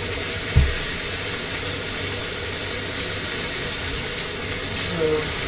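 Venison steak sizzling in a hot pan, a steady hiss, with one dull low thump about half a second in.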